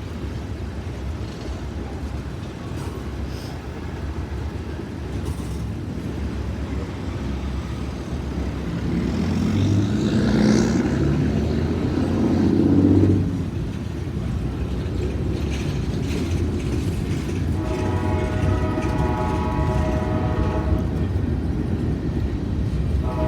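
A train rolling past with a steady low rumble. A louder rushing swell builds from about nine seconds in and stops sharply a few seconds later. Near the end the locomotive's horn sounds one chord-like blast of about three seconds, and a second blast begins right at the end.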